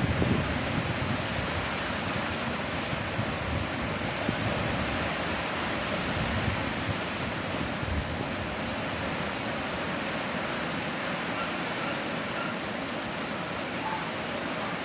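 Heavy rain with strong wind: a steady hiss of rainfall, with wind gusts buffeting the microphone in the first second or so.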